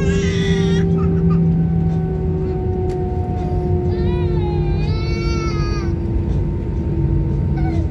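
Airbus A319 cabin noise on the landing rollout: a steady rumble with engine tones that slowly fall in pitch as the aircraft slows on the runway. A high, wavering cry sounds briefly at the start and again from about four to six seconds in.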